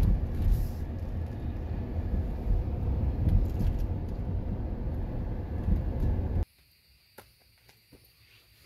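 Steady low rumble of road and engine noise heard inside a moving minivan. It cuts off suddenly about six and a half seconds in, leaving a much quieter stretch with a few faint clicks.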